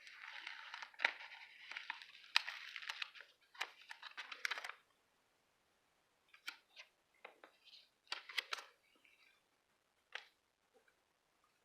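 Paper and sticker sheets rustling and crinkling as they are handled, with sharp clicks. The rustling stops about five seconds in, then come scattered soft clicks and short rustles.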